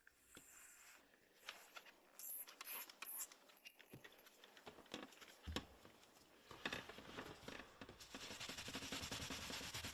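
Faint scratching and rubbing with scattered light ticks; a low hum comes in about halfway through and slowly grows louder.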